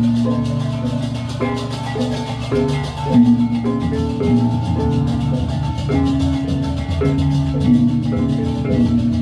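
Balinese gamelan playing: bronze metallophones ring out quick, changing notes over drums.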